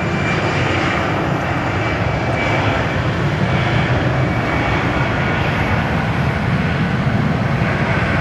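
Airliner engines running loud and steady, with a faint high whine above the roar.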